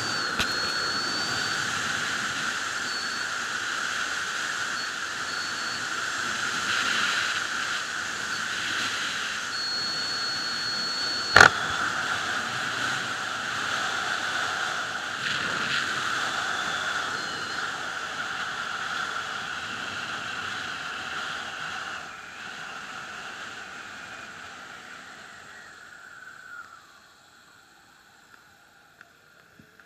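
Steady rush of wind noise from a sport motorcycle ridden at speed, with one sharp click about eleven seconds in. The rush dies down over the last several seconds as the bike slows.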